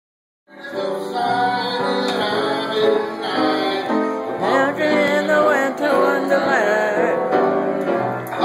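Upright piano played with a voice singing along. The music starts abruptly about half a second in.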